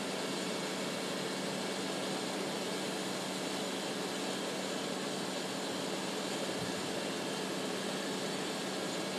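Steady drone of running engine-driven machinery at a fire scene: an even rushing noise with a faint low hum held underneath, unchanging throughout.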